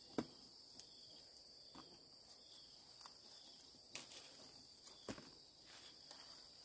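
Faint, steady, high-pitched chirring of insects, with a few sharp clicks: one just after the start and two more about four and five seconds in.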